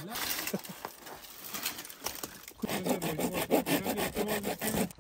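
Red-handled folding pruning saw cutting dry wood in quick back-and-forth strokes, louder and faster from about halfway through.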